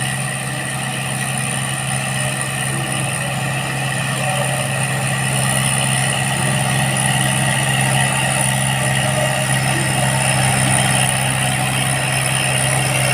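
A heavy vehicle's engine running steadily at an even speed, gradually getting louder.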